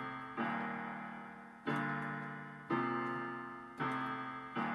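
Solo piano playing sustained chords, five struck about a second apart, each left to ring and fade before the next.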